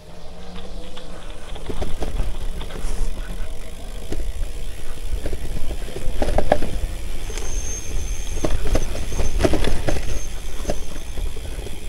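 Gravel bike riding fast over a dirt singletrack trail: constant tyre rumble and wind on the handlebar-mounted camera, with the bike rattling and knocking over bumps, hardest about six and a half and nine and a half seconds in.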